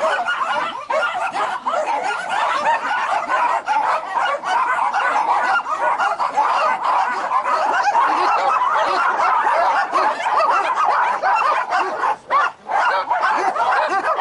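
Many small breeding dogs in rows of raised wire kennel cages barking and yapping all at once in a constant, overlapping din, with a brief break about twelve seconds in.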